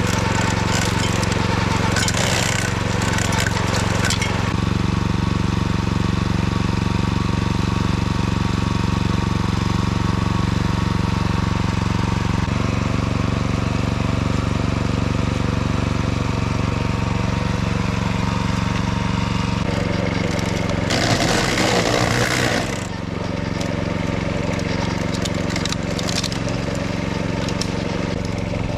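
Kyoritsu AZ646 wing mower's engine running steadily while it cuts levee grass, with two spells of louder rough clattering from the cutters, about two seconds in and again about twenty-one seconds in.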